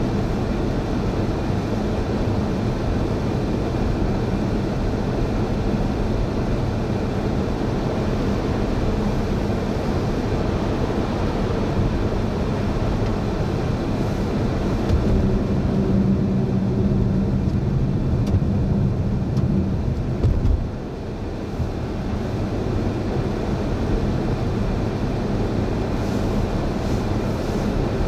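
Steady vehicle road and engine noise with a low rumble; a deeper hum swells about halfway through and drops off suddenly about two-thirds of the way in.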